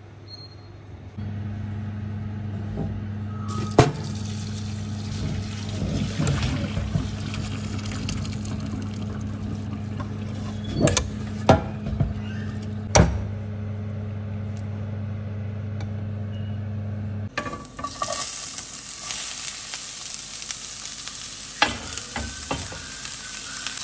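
Kitchen sounds at a steel sink: a steady low hum with running water and a few sharp clanks of a pot against a metal strainer. About 17 seconds in, this gives way to chopped onions sizzling in hot olive oil in a frying pan, with a few clicks of stirring.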